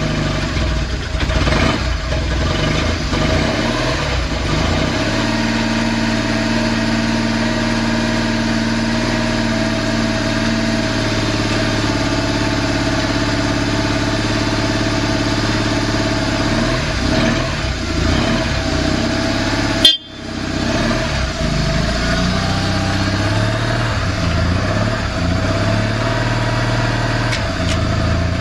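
BMW R1200C boxer-twin motorcycle engine idling steadily just after a hot-wired start, with a couple of brief small rises in pitch; the even idle and lack of odd noises mark a healthy engine. A single sharp snap about twenty seconds in.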